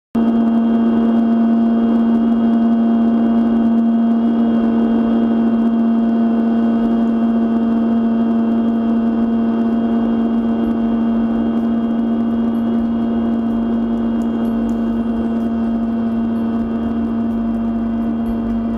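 Model airplane's motor and propeller running at a steady throttle, a constant buzzing drone that starts abruptly.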